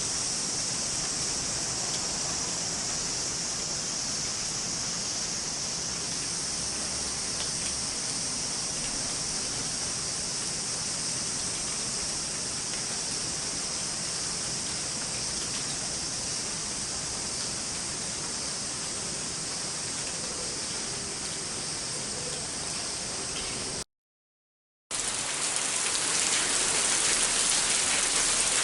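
Light summer rain falling in a steady hiss. It cuts out for about a second near the end, then moderate rain comes in, louder and fuller.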